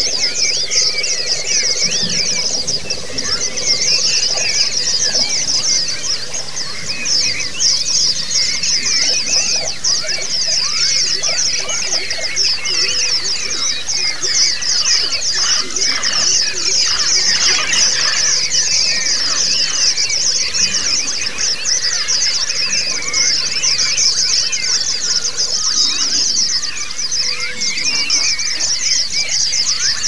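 Pleci (white-eye) song in the ngalas-and-ngerol style: a loud, continuous, high-pitched stream of very rapid chirps and rolling trills with no pauses.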